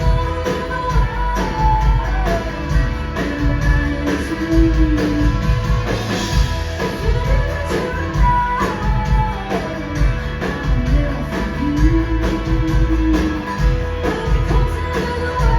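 Live rock band playing at concert volume: guitars over a drum kit keeping a steady beat, with held, bending lead notes.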